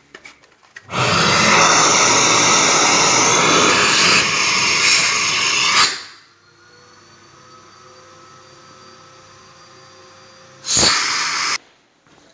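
Central vacuum system sucking air: a loud, even rush of air for about five seconds, then a quieter steady hum with faint whining tones, then a second short rush of about a second that cuts off suddenly.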